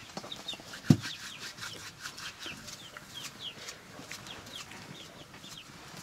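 Chickens calling: a steady run of short, high, falling peeps, about two a second, with one sharp knock about a second in.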